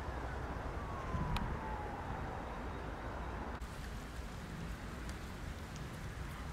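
A distant siren wail falls slowly in pitch over a steady low rumble of outdoor background noise. A little past three seconds the background drops abruptly to a quieter hiss with a few faint clicks.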